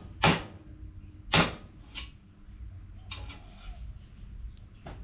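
Hammer blows on a motorcycle's exhaust heat guard, knocking it away from the exhaust to cure a rattle. Three sharp strikes come in the first two seconds, then a few fainter taps.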